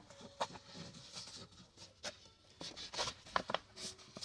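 A hand rubbing, pressing and pinching a woven fabric storage basket: soft scratchy rustles with light taps and clicks coming every fraction of a second.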